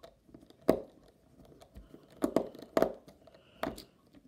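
Close handling noise from a small screwdriver and fingers working on a cheap replica smartwatch's metal case: about five sharp clicks and knocks with faint ticks between, as a tiny screw is driven home.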